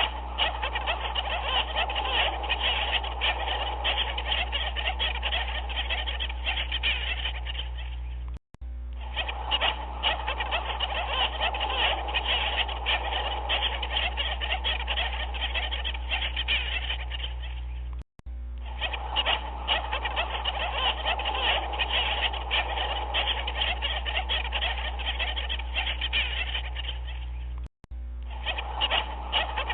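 A dense chorus of many overlapping animal calls, with a low steady hum under it; the stock loop cuts out for an instant about every ten seconds and starts again.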